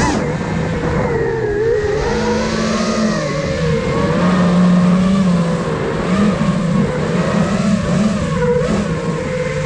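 Five-inch FPV racing quadcopter's brushless motors and propellers whining. The pitch rises and falls continually with the throttle.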